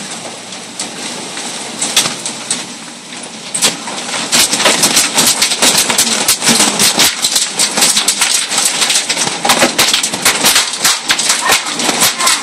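Large hailstones coming down hard, first as a steady hiss with scattered hits. About four seconds in it becomes a dense, louder clatter of many sharp impacts.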